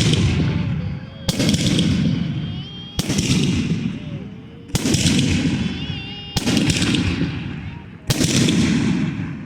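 Fireworks going off one after another, a sharp bang about every one and a half to two seconds, five in all, each followed by a long rumbling, crackling tail that dies away before the next.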